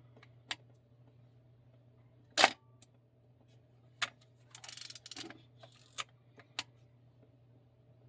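Minolta XG-7 35mm SLR film camera firing its shutter with one loud mechanical clack, then its film advance lever being wound with a short ratcheting rasp, among a few light clicks; the camera is in working order.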